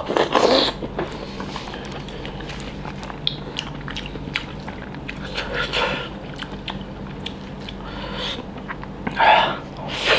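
Close-up eating sounds: a loud bite into crisp food about a second in, then chewing with soft wet mouth sounds, and another loud bite near the end. A steady low hum runs underneath.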